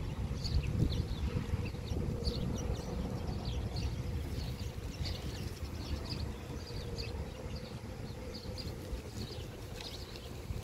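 Steady low outdoor rumble with a faint hum, and many short, high chirps of small birds scattered throughout.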